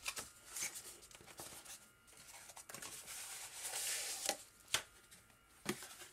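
Cardboard product box handled and opened: the inner tray slides out of its sleeve with a papery rustle and a longer scraping hiss about three to four seconds in, among a few sharp cardboard taps and clicks.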